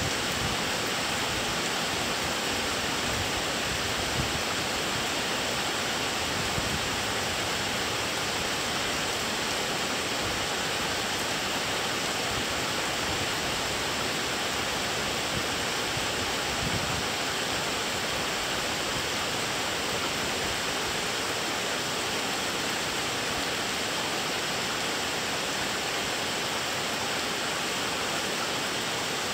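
Steady rain of a thunderstorm, an even hiss that holds constant throughout, with a few faint brief knocks.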